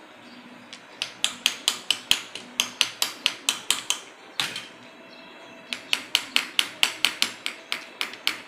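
Small hammer striking a wooden birdhouse frame in quick repeated taps, about five a second. Two runs of blows with a pause of over a second between them, and one last blow near the end.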